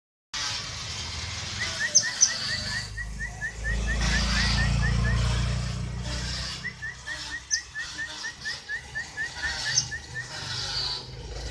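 Canary singing: two long runs of short repeated chirps at about four a second, with a few sharp high notes. A low rumble rises under it for a couple of seconds mid-way.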